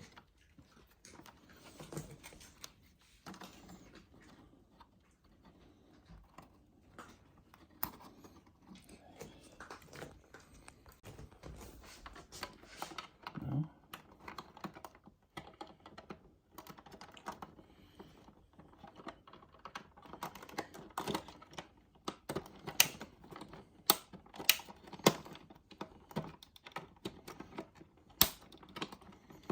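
Irregular small plastic clicks, taps and snaps from hands working the snap-in plastic pins and clips of a refrigerator ice and water dispenser assembly. The clicks are sparse at first, then come thicker and louder in the second half.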